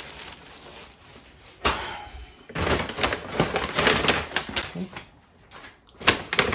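Paper grocery bag crinkling and rustling as a hand opens it and rummages inside, with a short knock near the end.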